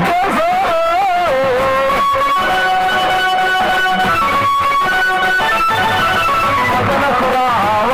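Band music for a dancing procession: a lead melody that bends and wavers in its first couple of seconds, then plays held notes, then bends again near the end, over drumbeats.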